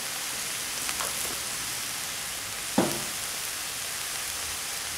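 Salmon cubes and vegetables sizzling in a hot wok, a steady frying hiss, with one short sharp sound a little under three seconds in.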